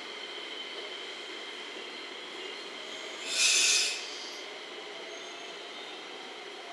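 A JR West 227 series electric train pulling away and receding: a steady running hum with thin high-pitched tones. About three seconds in there is a short, loud hiss of released compressed air.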